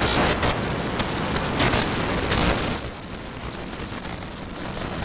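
Super Heavy booster's 33 Raptor methane engines firing at liftoff: a loud rushing noise with crackle that drops in level about three seconds in and carries on more quietly.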